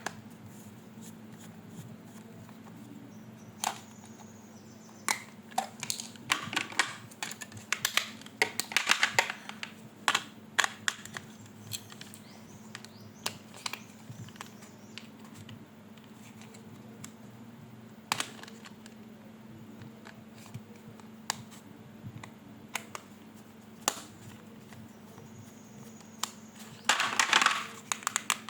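Handling noise from unboxing toys: scattered clicks and taps with short bursts of rustling about a third of the way in and again near the end, over a faint steady hum.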